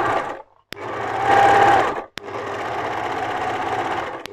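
Overlocker (serger) sewing along a fabric edge, running in three spurts with two short stops, about half a second in and about two seconds in.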